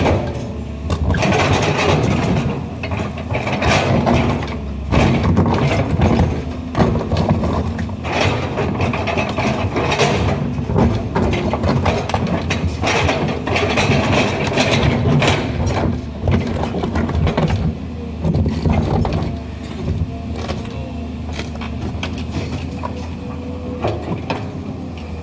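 Komatsu PC210 hydraulic excavator's diesel engine running steadily under load while its steel bucket scrapes and grinds through hard rocky soil. Rocks knock and clatter against the bucket teeth in irregular bursts.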